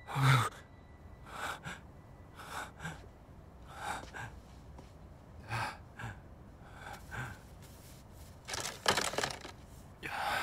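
A person breathing in short, heavy breaths about once a second, with a louder, longer breath near the end.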